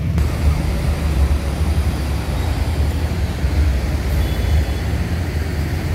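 Slow street traffic close by: cars and motorcycles idling and creeping past, a steady low engine rumble.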